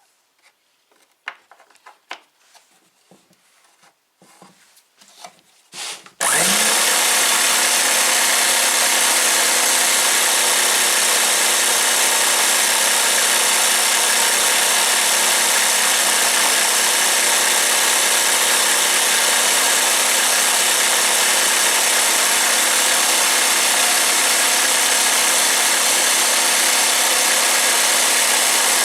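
A few light handling clicks, then about six seconds in a jigsaw mounted under a homemade scroll-saw table is switched on and runs steadily at full speed, its blade reciprocating with a constant motor hum.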